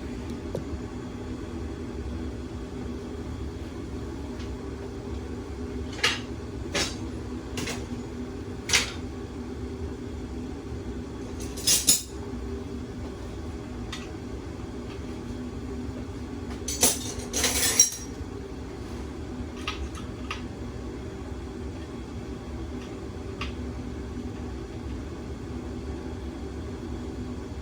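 Metal hand tools clinking and clattering, a spanner and other tools picked up and knocked against metal, as a series of separate sharp clinks, the loudest cluster about twelve seconds in and another around seventeen to eighteen seconds, over a steady low hum.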